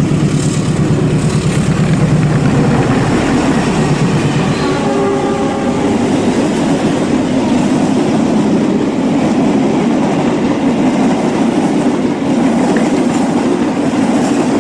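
Miniature CC201 toy locomotive and its wagons running along a tiled floor: a steady, loud rumble and rattle of the motor and plastic wheels, with a faint tone about five seconds in.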